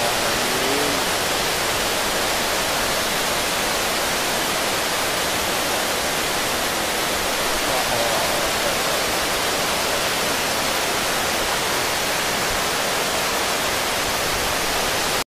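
Flash-flood water rushing over flooded fields: a loud, steady, unbroken rush of water.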